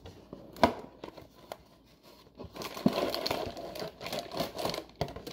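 Plastic packaging handled: a sharp click about half a second in and a couple of lighter knocks, then steady crinkling and rustling from about two and a half seconds on.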